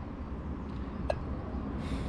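Steady low outdoor rumble, with a single sharp click about a second in and a short hiss near the end.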